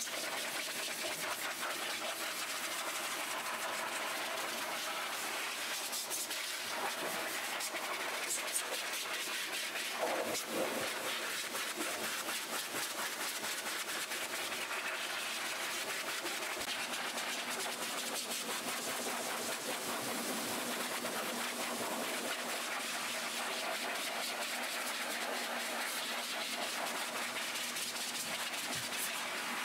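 High-velocity pet dryer blowing a steady rush of air through its hose onto a wet dog's coat.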